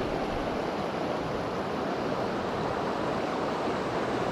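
Mountain creek water rushing steadily, an even hiss with no breaks.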